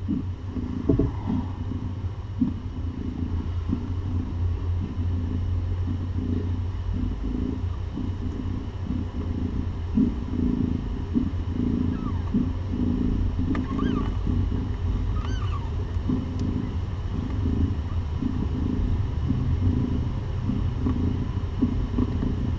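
Mother cat purring steadily while nursing her kittens, the purr swelling and fading about once a second with her breathing. A few faint high chirps come near the middle.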